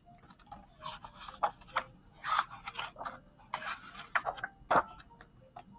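Pages of a hardcover picture book being turned and the book handled close to the microphone: a run of irregular paper rustles with a few soft clicks, the sharpest near the end.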